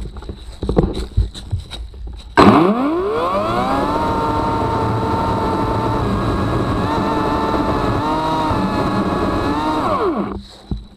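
A few knocks, then an Ego CS1800 18-inch battery chainsaw's electric motor spins up with a rising whine about two seconds in and runs at full speed cutting into a tree trunk, its pitch dipping briefly under load a couple of times. Near the end the trigger is released and the whine falls away.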